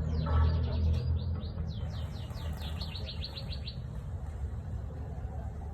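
A bird singing rapid runs of short, high falling chirps that stop a little over halfway through, over a steady low rumble.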